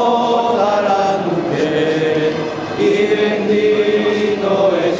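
A crowd of voices praying the rosary aloud in Spanish, reciting together in a chanting drone on long held notes.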